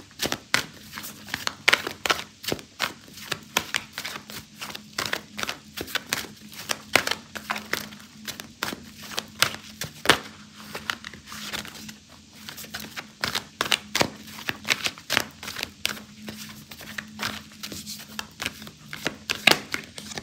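Tarot cards being shuffled by hand: a long run of quick, irregular papery snaps and riffles as the deck is worked before a card is drawn. A faint steady hum runs underneath.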